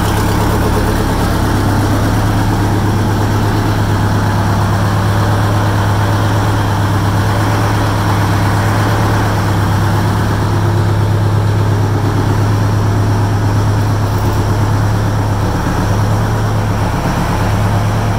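Detroit Diesel 8V92 two-stroke V8 diesel in a 1977 Kenworth W900A, naturally aspirated, idling steadily.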